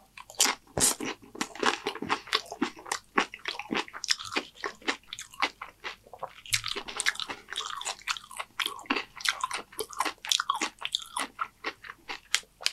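Close-up chewing of Doritos nachos: a steady run of sharp, crisp crunches as mouthfuls of tortilla chips are bitten and chewed.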